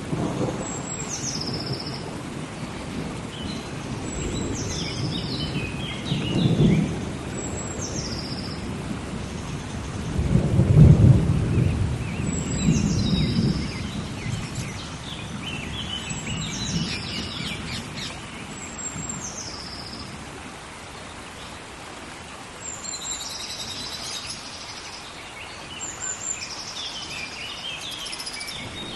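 Tropical rainforest rainstorm: steady heavy rain with rolling thunder rumbles, the loudest about ten seconds in. A bird repeats a short, high, descending call every few seconds over it.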